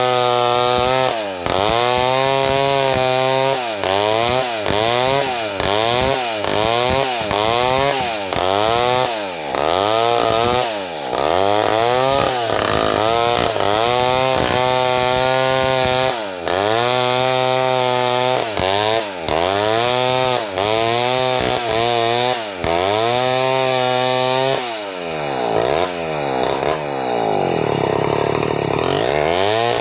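Two-stroke chainsaw with an extension bar ripping a large log lengthwise, its engine pitch dipping and recovering over and over as the long bar bogs in the cut and the throttle is worked. Near the end the engine slows and comes back up in one longer sweep.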